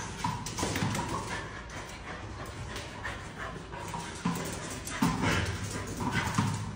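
A dog running up and down concrete stairs: many quick taps and scrabbles of its paws on the steps, mixed with the dog's own short vocal sounds.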